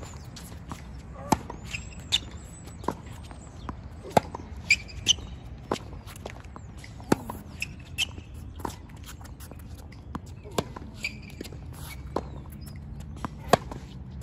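Tennis balls struck hard by racquets and bouncing on a hard court during a baseline rally: sharp pops at irregular intervals of roughly a second. Tennis shoes squeak briefly on the court surface a few times.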